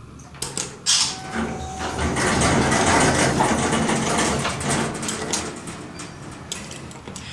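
Dover Traditional passenger elevator heard from inside the cab: a few sharp clicks, then a loud, even rush of mechanical noise that builds about two seconds in and fades away, with more clicks near the end.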